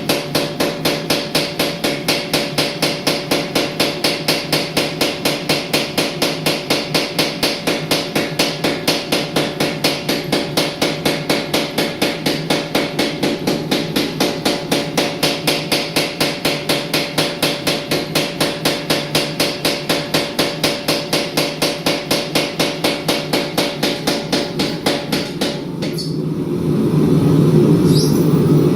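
Rapid, evenly spaced hammer blows on a steel billet being forged, about five strikes a second, keeping up the same beat for most of the stretch. Near the end the blows thin out and a steady rushing noise grows louder.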